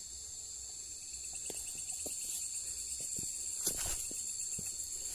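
Steady high-pitched chorus of night insects, with scattered soft crunches of footsteps through dry leaf litter and grass and one louder crackle a little before four seconds in.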